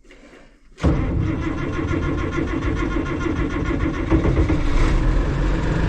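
International Harvester 1586 tractor's six-cylinder diesel engine firing up about a second in, then running steadily at idle: a first start after sitting since last fall.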